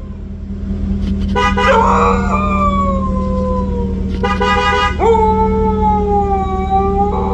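A shepsky howling along to a car horn: long, drawn-out howls that slide in pitch and fall away slowly, broken by short horn toots about a second in, around four seconds in and again near the end, over a steady low hum.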